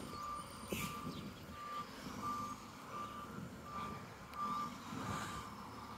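Garbage truck's reversing alarm beeping at a steady pitch, about one beep every three-quarters of a second, over a low engine rumble: the truck is backing up to turn around.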